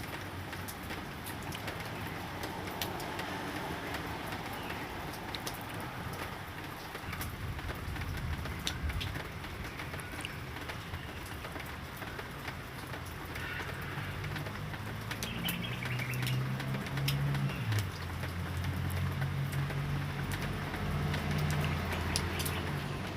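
Light rain falling steadily, with scattered drops tapping, and a few brief bird chirps in the middle. From a little past halfway, a low steady engine hum comes in and grows.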